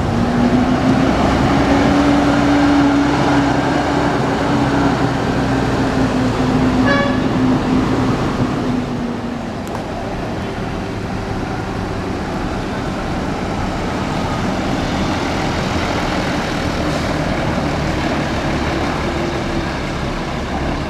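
Buses running in a busy terminal, with engine and traffic rumble throughout. A loud steady tone holds for the first nine seconds or so, a short horn toot sounds about seven seconds in, and a fainter rising tone comes near the end.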